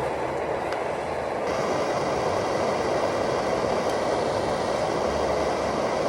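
Lit camping stove burner hissing steadily under a pot of water, with a sharper high hiss joining about a second and a half in.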